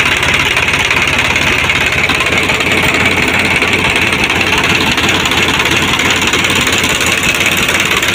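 Sonalika RX 50 tractor's three-cylinder diesel engine idling steadily, heard close to the engine block.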